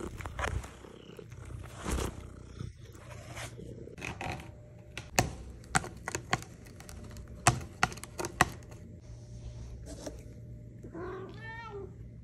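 Domestic cat purring, with several sharp clicks in the middle and a short pitched cat call near the end.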